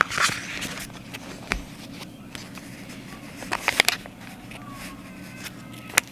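Paper and a sticker sheet being handled: a short rustle, then scattered light clicks and taps as stickers are peeled off the sheet and pressed onto a paper envelope, with a cluster of clicks a little past halfway.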